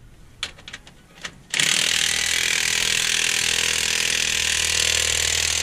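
A few light metallic clicks, then a power tool starts about a second and a half in and runs steadily for about four seconds before cutting off suddenly.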